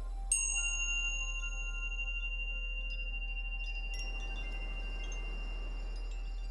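A chime struck once about a third of a second in, its several high tones ringing on for seconds, with a few faint tinkles a few seconds later. Under it runs a steady low 40 Hz tone from a sound-therapy track.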